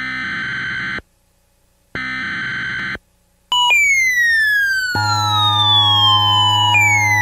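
Synthesized emergency-alert sounds: two loud one-second buzzing beeps a second apart, then from about three and a half seconds in a siren tone that falls steadily in pitch and jumps back up high, with a steady low drone joining about five seconds in.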